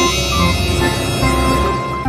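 Background music: sustained, ominous-sounding held notes over a steady low bass.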